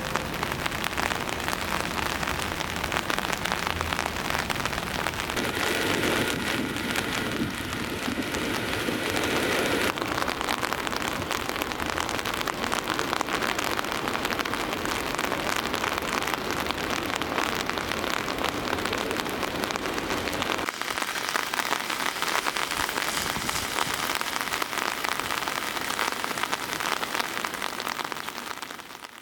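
Steady rain falling and pattering on surfaces, a dense even hiss of drops; the low rumble beneath it drops away about twenty seconds in.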